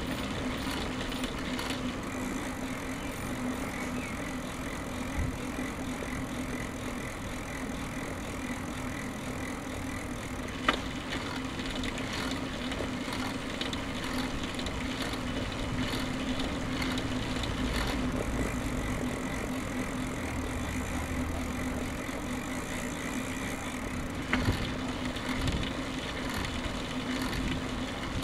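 Steady rolling noise of a road bicycle ridden along pavement, with a constant low hum underneath. There are two sharp clicks, one about eleven seconds in and one near the end.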